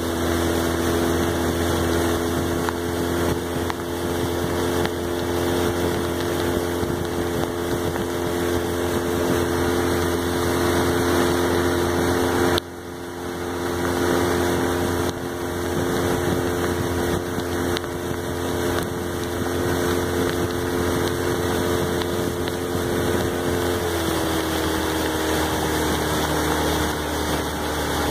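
Outboard motor of a following motor launch running steadily, with wind and rain noise over the microphone. Near the end the engine eases off and its pitch drops slightly.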